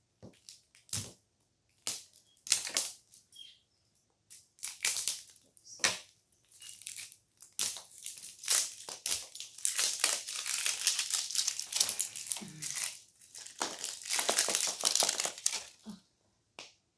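Thin clear plastic wrap crinkling and crackling as it is peeled and crushed off hard plastic blind capsule balls, with sharp clicks for the first few seconds, then dense crackling that stops near the end.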